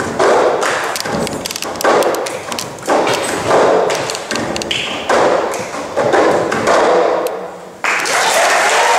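Several people playing the cup-game rhythm with plastic cups on a tabletop: claps, taps and cups slapped down on the table in a repeating pattern, with no singing. Applause starts near the end.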